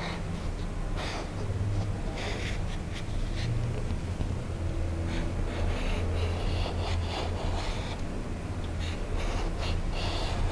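Marker pen drawing on a painted canvas board in short, irregular scratchy strokes, over a steady low hum.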